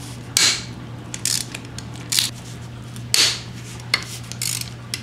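Ratchet wrench clicking in about six short bursts as it backs out bolts on a Subaru EJ25 engine block, over a steady low hum.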